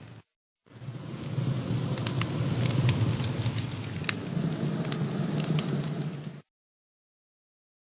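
Campfire crackling, with sharp pops and three short, high, wavering squeaks. The sound cuts out abruptly just after the start and again for the last second and a half, then resumes.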